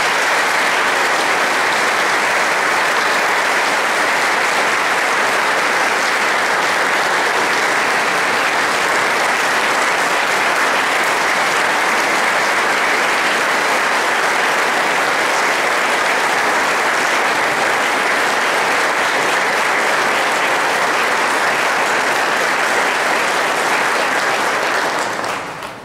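Congregation applauding, long and steady, dying away near the end.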